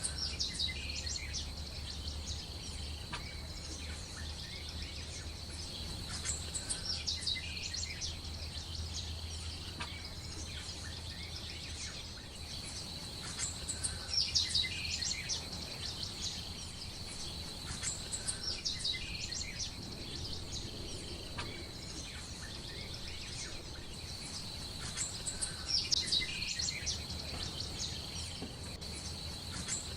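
Small birds chirping in short clusters every few seconds over a steady high-pitched drone, with a low hum underneath.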